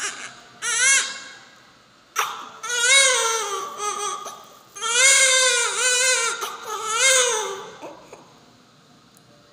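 Newborn baby crying in three long bouts, each wail wavering up and down in pitch; the crying stops near the end.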